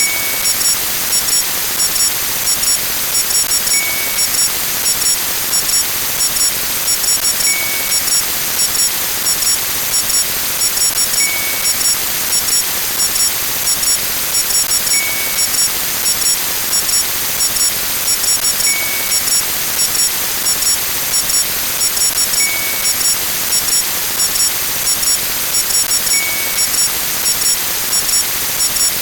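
Steady loud hiss with a thin very high tone over it, rapid high-pitched electronic blips in uneven clusters, and a short beep about every four seconds: synthetic counter sound effects ticking as a number counts up.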